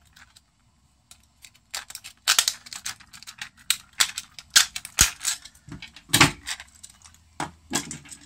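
Steel split ring and split-ring pliers clicking and clinking against a hard plastic stickbait lure as an assist hook is worked onto the ring. The clicks are irregular and start about two seconds in.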